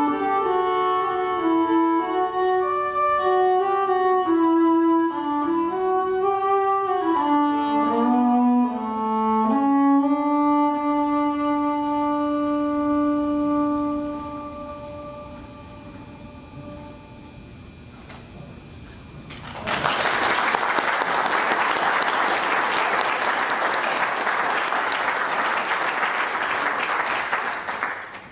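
Solo violin playing a slow melody that settles on a long held note and fades out. About two-thirds of the way through, audience applause breaks out and runs almost to the end.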